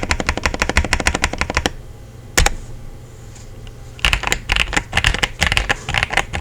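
Typing on a KZZI K75 Lite mechanical keyboard: quick runs of key clicks, a pause with a single keystroke in it, then another fast run near the end.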